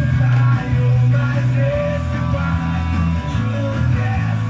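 Rock music with guitar and a heavy bass line.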